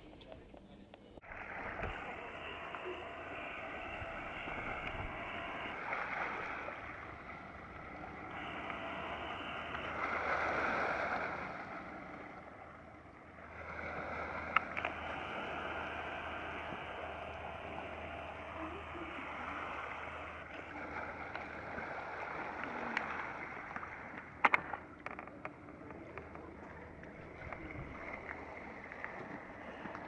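Sea water rushing and washing steadily, swelling and easing like waves on a shingle shore, with two sharp clicks partway through.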